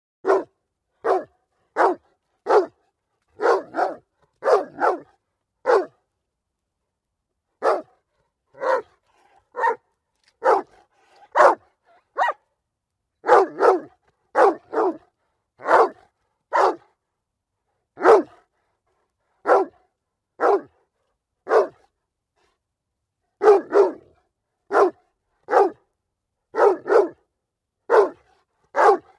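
A dog barking over and over: short single barks about once a second, some in quick pairs, with two brief pauses.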